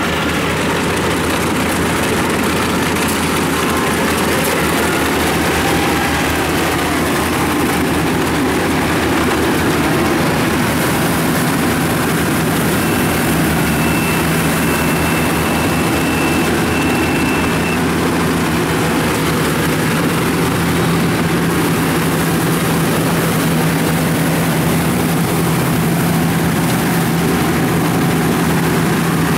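Diesel engines of tracked rice-harvesting machines running steadily and loudly under load: first a rice-hauling tractor, then a combine harvester cutting rice. A steady low hum sets in about a third of the way through.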